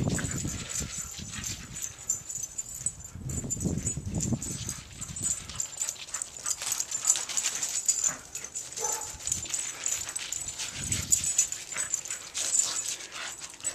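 A small black terrier playing with a plush penguin toy on crusty snow: scattered crunching steps and scuffles, with short dog sounds now and then.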